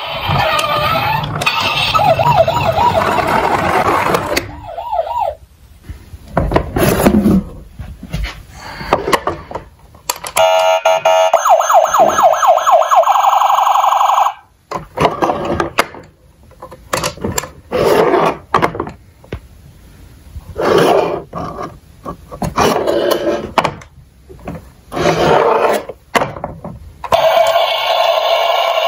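Electronic sirens of battery-powered toy emergency vehicles, switched on in turn. A wailing siren at first, a steady warbling tone for about four seconds midway, then a string of short bursts, and a wailing siren again near the end.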